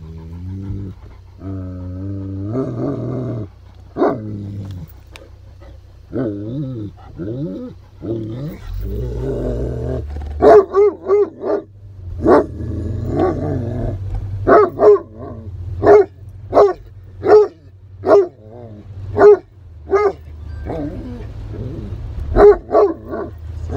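Great Pyrenees dogs vocalising excitedly inside a car. First come wavering whines and yowls, then from about ten seconds in loud, sharp barks roughly once a second, some in quick runs of two or three. A steady low car hum runs underneath.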